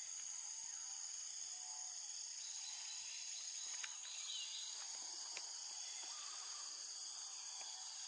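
Steady high-pitched drone of insects, with a few faint short ticks and a brief chirp around the middle.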